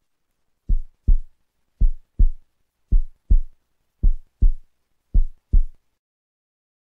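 Heartbeat sound effect: five deep lub-dub double thumps, about one beat a second, stopping about a second before the end.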